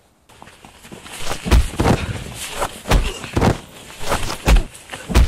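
Staged fistfight on trodden snow: a run of irregular heavy thuds and scuffs from kicks, blows and stamping feet, about six loud ones.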